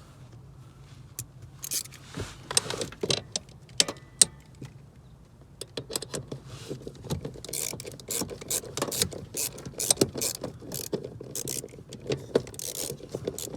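Hand ratchet clicking as the mounting nuts of a clutch master cylinder are tightened: scattered clicks at first, then rapid, steady clicking from about halfway through.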